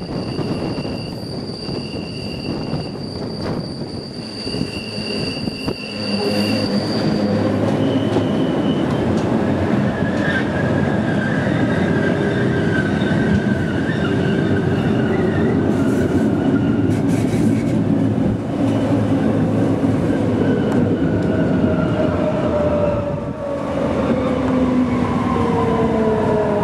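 Electric Rhaetian Railway train running along the Bernina line. In the first few seconds its wheels squeal on a curve with steady high tones. From about six seconds the rolling noise grows louder, and whining tones slowly fall in pitch toward the end.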